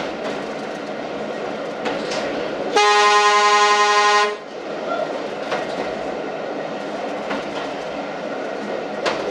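A train horn sounds one steady single-note blast of about a second and a half, a few seconds in, over the steady running noise of the train heard from inside the leading driving cab. The wheels click now and then over rail joints.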